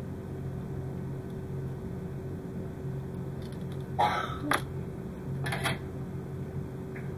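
Steady low hum at the workbench, broken in the second half by two short breathy huffs, about a second apart, with a light click between them.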